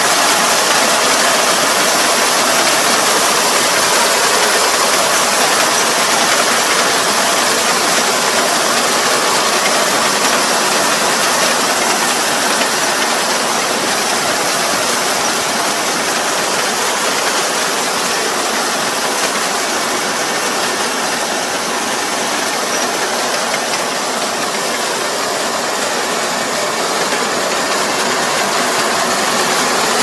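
Rice combine harvester running while cutting rice, its engine and threshing machinery making a steady, even mechanical noise that grows louder near the end as the machine comes closer.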